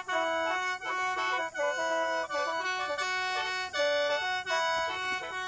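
Khaen, the Lao bamboo free-reed mouth organ, played solo: a quick melody of short notes over steady held drone tones, with brief breaks between phrases.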